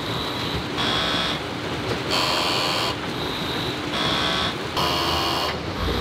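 Concrete mixer truck running as wet concrete slides down its discharge chute, the machine sound pulsing in a regular rhythm about once a second.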